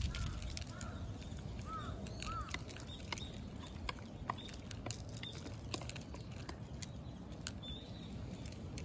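A black-and-white cat eating dry kibble from a dish, a steady run of small irregular crunches and clicks. A few short chirps sound in the background, most of them in the first couple of seconds.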